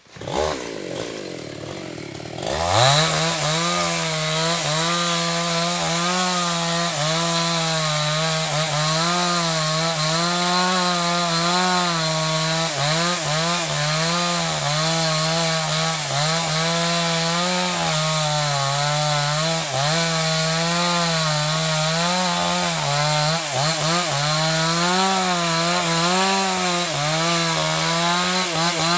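Chainsaw revving up, then running at full throttle cutting wood, its engine note wavering up and down as the chain bites into the log.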